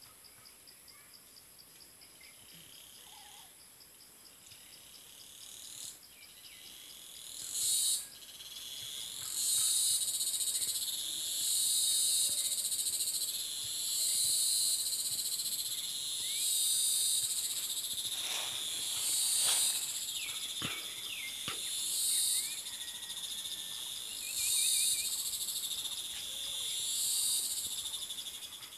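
Insects calling: a faint high trill at first, then from about eight seconds in a loud, high buzzing chorus that swells and fades in waves roughly every two seconds. A few short chirps sound faintly in the middle.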